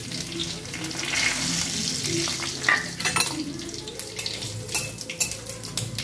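Whole spices (dried red chilli, bay leaves and panch phoron) sizzling in hot oil in a wok as a tempering. The sizzle swells about a second in, then a spatula scrapes and clicks against the wok as the spices are stirred.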